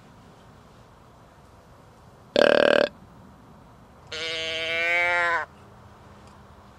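Deer calling: a short, loud, raspy grunt, then about a second and a half later a longer, steady bleat that swells slightly before cutting off.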